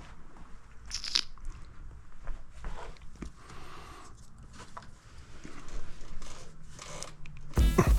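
Hand-handling sounds of a loose engine part being worked back into place: scattered scrapes, crunches and clicks. Background music starts near the end.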